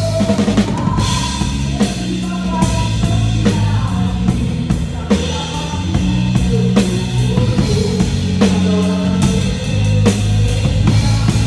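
Live band music with a drum kit playing a steady beat of kick drum, snare and cymbals over sustained instruments.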